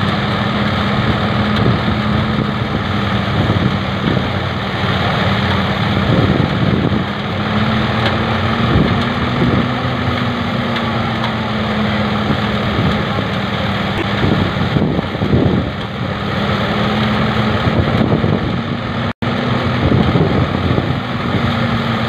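Engine-driven portable rice thresher running steadily, its engine note wavering slightly in pitch under a rough noise of stalks going through the threshing drum.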